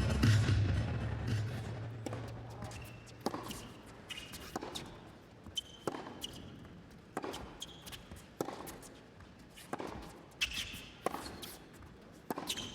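Tennis ball being struck and bouncing on an indoor hard court, with a sharp hit about every second and a quarter and short sneaker squeaks in between. Background music fades out over the first two seconds or so.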